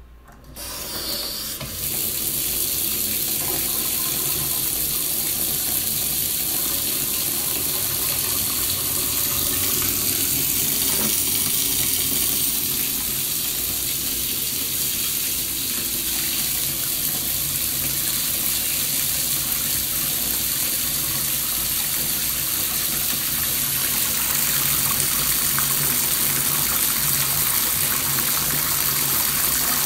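Bathtub filling from the tap: the water picks up to full flow about two seconds in, then pours steadily into the tub as an even, loud hiss.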